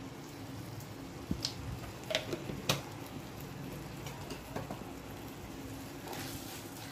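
Onion-tomato masala sizzling softly in a nonstick kadhai, with a few light clicks of a silicone spatula against the pan.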